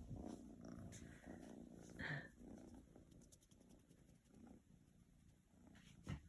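Kitten purring faintly in a low, pulsing rumble. There is a short higher-pitched sound about two seconds in and a soft knock near the end.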